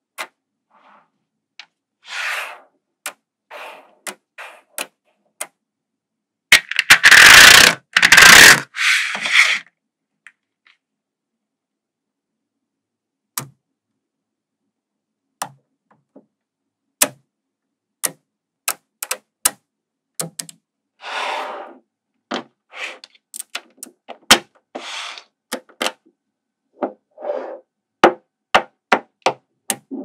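Small magnetic balls clicking and snapping together as strands and blocks of them are joined, in a scattered series of sharp clicks. A few longer noisy bursts come between them, the loudest about seven to nine seconds in.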